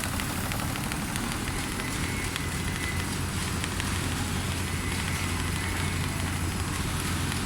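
Large-area CNC sewing machine with rotating head running: a steady mechanical hum with fast, faint ticking.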